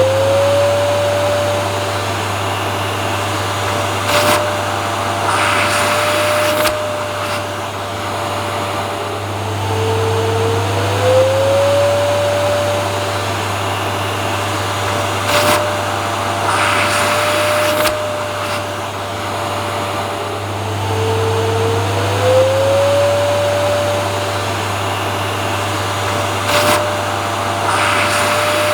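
Vacuum cleaner running steadily with a low hum, its motor whine sliding up in pitch and then holding. The same cycle, with a click and a short rush of scratchy noise, repeats about every eleven seconds: a looped recording.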